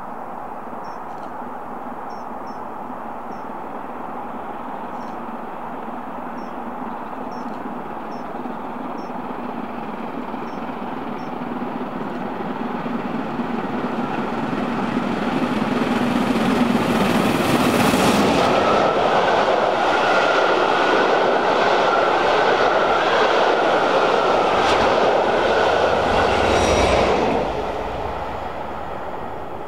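Steam locomotive hauling a train at speed, approaching and passing close by. Its running noise builds over about fifteen seconds to a loud pass, then falls away sharply near the end. A few faint high chirps are heard in the first ten seconds.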